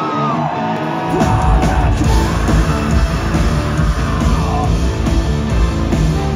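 Metal band playing live: a singer's held, wavering note trails off, and about a second in the full band comes in loud with heavy drums, bass and guitars.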